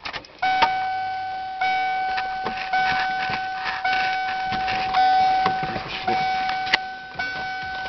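Car alarm sounding one steady high beep over and over, about once a second, each beep running almost into the next.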